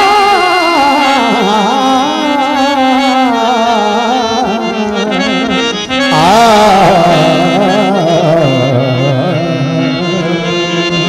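Male singer singing a long, wavering, ornamented Punjabi folk vocal line through a microphone and PA, over steady instrumental accompaniment. A new loud phrase starts about six seconds in, after a brief dip.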